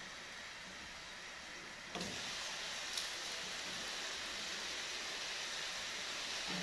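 Steady cooking hiss from pots on a gas stove. About two seconds in, a metal pot lid is lifted off the simmering greens with a light clink, and the hiss gets louder and brighter. There is a second clink about a second later.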